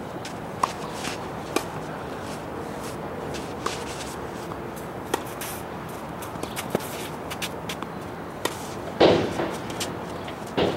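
Tennis rally: sharp pops of racket strikes and ball bounces every second or two, the loudest about nine seconds in, over steady background noise.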